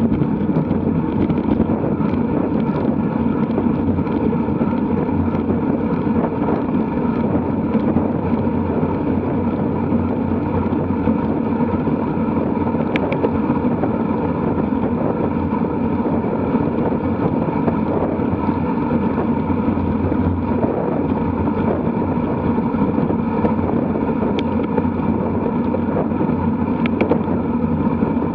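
Steady wind rush and road rumble on the microphone of a camera mounted on a road bike riding at about 40 to 48 km/h, loud and unchanging throughout.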